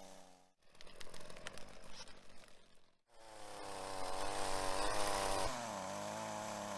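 Chainsaw engine running at speed in short edited clips, its pitch wavering and dipping a little about two thirds of the way in. A quieter stretch of crackling clicks comes near the start.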